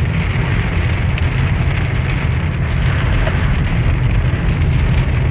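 Heavy rain, a downpour, drumming steadily on a moving car's roof and windshield, heard from inside the cabin over the low rumble of the car on the wet road.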